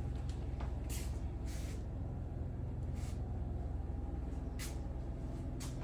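A steady low machine hum runs throughout, with a few brief scuffing noises scattered through it.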